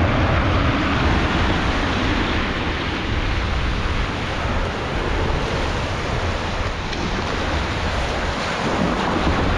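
Small waves breaking and washing up a pebbly shore and around a boat hull, with steady wind buffeting the microphone as a low rumble.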